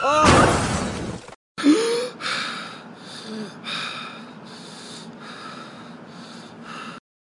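A loud crash-like burst of noise that cuts off abruptly after about a second and a half, then a person's gasping, laboured breathing in repeated breaths that grow quieter.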